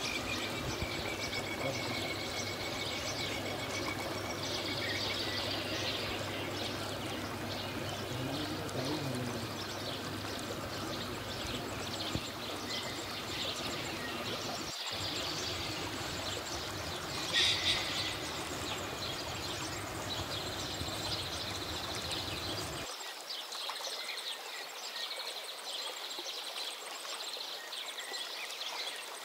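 Steady rushing and bubbling water noise from aquarium air bubblers and filters.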